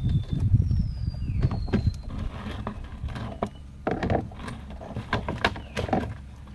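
Irregular taps, knocks and rustling as catch is shaken from a mesh fish trap into a plastic bucket, with live shrimp flicking against the bucket and net. The handling is heaviest in the first two seconds, then the taps thin out.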